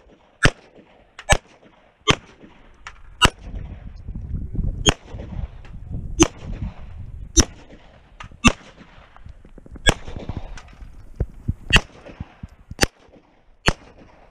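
Glock pistol firing single shots at a steady pace: about a dozen sharp reports, roughly one every second or so, each with a short echo.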